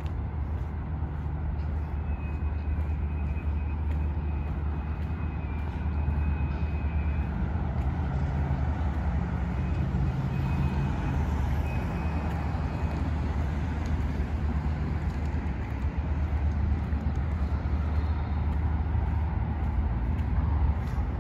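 Steady road traffic: cars passing on a multi-lane city road, a continuous noise with a strong low rumble underneath.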